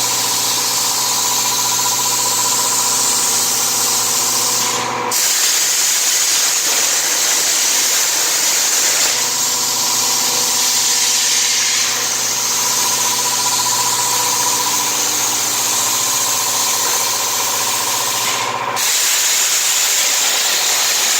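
Hypertherm Powermax45 XP plasma cutter on a CNC table, cutting with a loud, steady hiss over a hum. The hiss dips briefly and the hum drops away about five seconds in, and again near the end.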